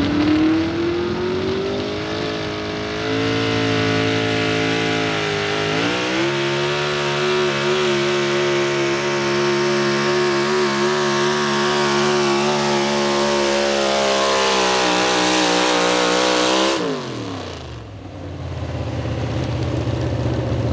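Pro Stock 4x4 pulling truck's big-block V8, running a single four-barrel carburettor, at full throttle dragging a weight-transfer sled. The revs climb at the launch and step up twice in the first six seconds, then hold high and steady for about ten seconds. Near the end they drop sharply as the throttle is lifted at the end of the pull, and the engine settles to a lower, steady run.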